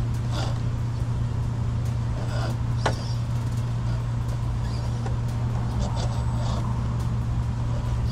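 Steady low hum with a few light knocks and clicks, one sharper near three seconds in, as an Axial SCX10 II RC rock crawler climbs over rocks.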